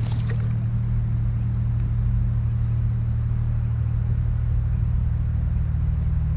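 Steady low machine hum that holds one pitch throughout, with a few faint ticks in the first moment.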